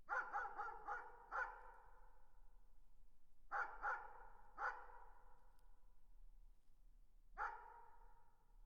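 Dog barking in the distance, in groups: a quick run of five barks, then three, then a single bark near the end, each bark trailing off in an echo.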